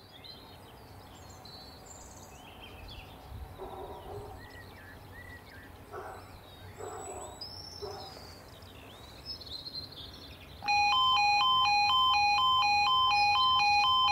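Quiet rural ambience with birds chirping. About ten and a half seconds in, an automatic half barrier level crossing's warning alarm starts up loud: a two-tone warble that alternates steadily between two pitches. It signals that a train is approaching and the barriers are about to come down.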